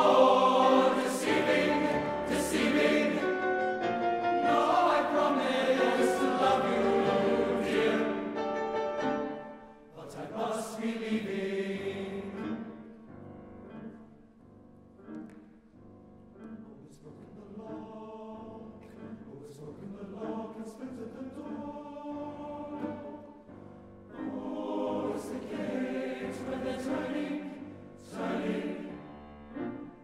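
High-school male-voice choir singing with piano accompaniment: loud at first, falling to a soft passage about ten seconds in, and swelling again near the end.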